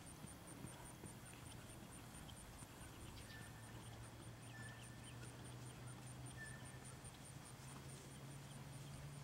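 Faint hoofbeats of a Thoroughbred horse trotting on soft, grassy ground, under a steady low hum.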